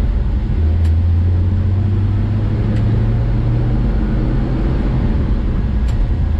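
1970 Chevy C10's straight-six engine and road noise heard from inside the cab while driving; the engine's note shifts lower about half a second in.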